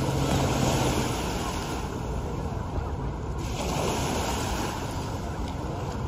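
Small Lake Michigan waves lapping and splashing along the shore, with wind buffeting the microphone. A low steady hum stops about a second in.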